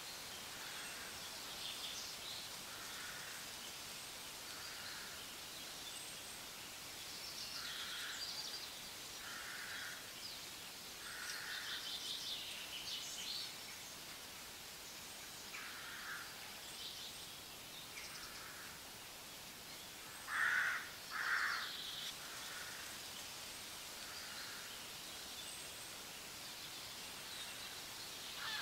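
Outdoor ambience of birds calling over a faint steady hiss. One bird repeats a short call every second or so, other birds chirp higher, and two louder calls come about twenty seconds in.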